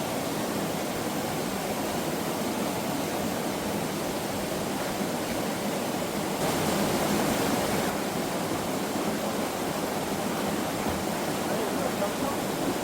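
Mountain valley stream rushing steadily, briefly louder with more hiss about halfway through.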